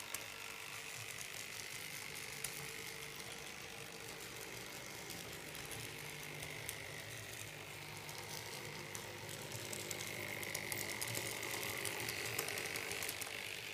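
TTm-scale model tram running on its track, its two small Tomix motor drive units giving a steady thin whine with scattered light clicks of the wheels and mechanism. It gets louder in the last few seconds as the tram comes closer.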